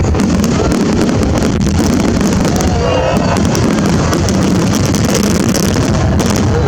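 Fireworks display going off in a dense barrage: rapid crackling and pops over a continuous low rumble of bangs.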